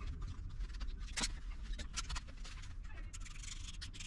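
Faint handling noise as butyl pond liner is pressed by hand around a window frame: a few scattered light clicks and scuffs over a low steady rumble.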